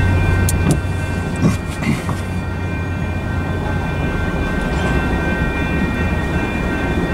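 Tank cars of a freight train rolling past over a grade crossing, a steady rumble of wheels on rail with a few sharp clacks in the first two seconds. Steady high ringing tones sound over it throughout.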